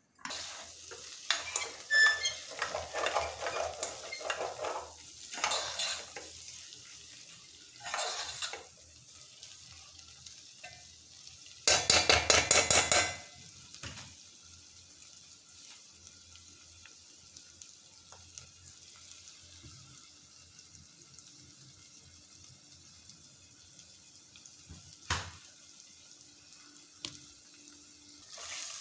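A metal utensil clatters and scrapes against an aluminium pot while capsicum and potato curry is stirred, with a loud run of rapid scraping about twelve seconds in. After that comes a soft, steady sizzle of the curry frying in oil, with a single sharp click near the end.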